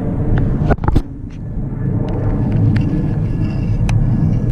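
Wind buffeting the microphone: a steady low rumble, with a few short sharp clicks.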